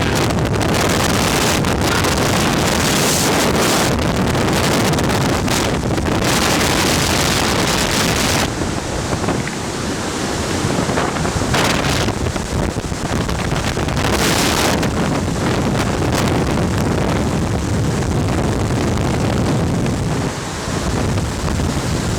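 Strong rush of air driven through an underground passage by a VOD-40 axial mine ventilation fan, buffeting the microphone as loud, steady wind noise. The high hiss brightens in gusts, most during the first eight seconds and twice briefly later.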